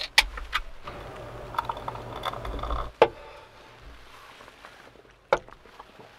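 A few light clicks, then beer poured into a glass for about two seconds, ending in a sharp knock; one more sharp tap later.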